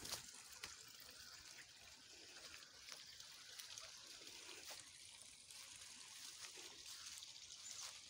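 Faint steady trickle of a small spring-fed stream, with scattered light crackles and rustles through it.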